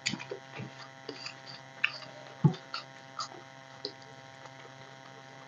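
Scattered small clicks and smacks of two people eating rice and curry by hand, with chewing and fingers working the food on steel plates. The loudest is about two and a half seconds in, over a steady electrical hum.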